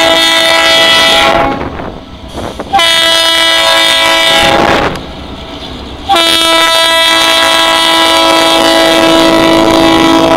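Air horn of an EMD GP38 diesel locomotive blowing a chord of several notes, as a train does for a road crossing. One blast ends about a second and a half in, a second blast of about two seconds follows, and a long blast starts about six seconds in and holds as the locomotive rolls close by.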